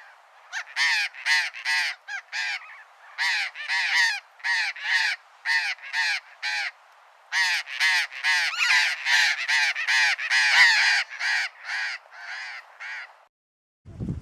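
Burrowing parrot calling: a long run of harsh, screechy calls, about three a second, broken by two short pauses and stopping shortly before the end.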